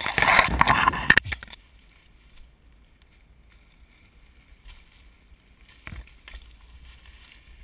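Dry marsh grass rustling and scraping against the camera as it pushes low through the stalks. The sound is loud for about the first second, then turns to soft rustling, with a sharp knock about six seconds in.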